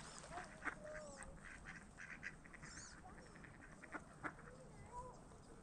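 Faint quacking and chattering from a small group of mallard ducks on the water: a scattering of short calls, with a couple of sharper clicks.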